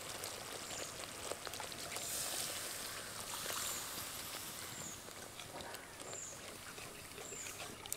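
Spice paste and freshly added water sizzling in a kadai on the stove, a steady hiss. A small bird chirps faintly throughout, about six short high falling notes.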